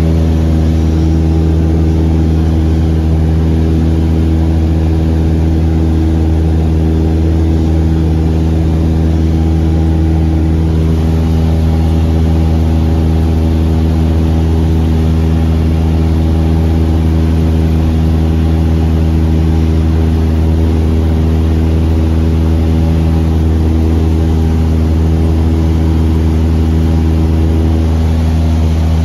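Piston engine and propeller of a high-wing light aircraft running steadily in level flight, heard from inside the cabin as a loud, unchanging low hum.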